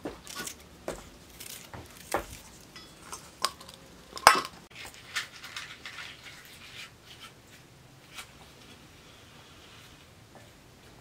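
Small clicks and taps of food preparation over steel bowls: a knife cutting green pepper by hand, pieces dropping into the bowl, with one sharper metallic clink about four seconds in. Quieter from about seven seconds on.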